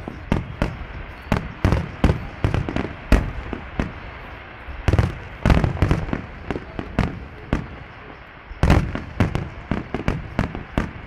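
Fireworks display: an irregular string of sharp bangs and cracks, quieter about four seconds in, with dense clusters of bursts about five seconds in and again near nine seconds.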